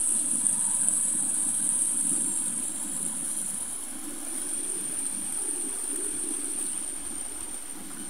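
Small stream of water rushing and splashing over stones, a steady hiss that gets somewhat quieter over the last few seconds.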